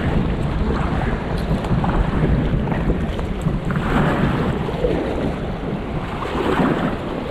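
Wind buffeting the camera microphone over the rush of choppy river water around a moving kayak, with paddle strokes swishing through the water every couple of seconds.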